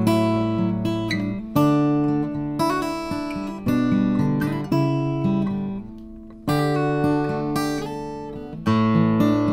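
Acoustic guitar strummed: chords struck sharply every second or two, each left to ring and fade before the next, with lighter strokes in between.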